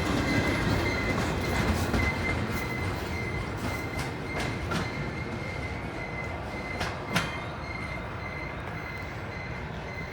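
Loaded freight rock train's cars rolling by and drawing away, the rumble slowly fading. A thin steady wheel squeal runs through it, with scattered clanks over the rail, the sharpest about seven seconds in.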